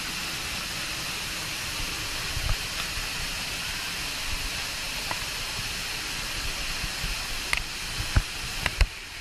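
Waterfall rushing: a steady hiss of falling water, with a few short knocks near the end.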